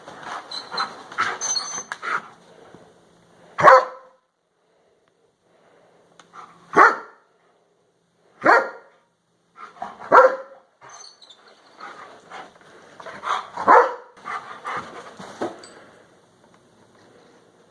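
Shepherd dog barking in short single barks a couple of seconds apart, about five in all, with quieter scuffling noise between them, as it plays at attacking a vacuum cleaner.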